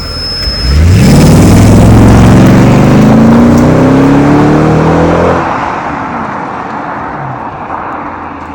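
Mercedes ML 63 AMG's naturally aspirated 6.2-litre V8 accelerating hard, its note climbing steadily in pitch for about four seconds. About five seconds in the throttle comes off and the sound dies away.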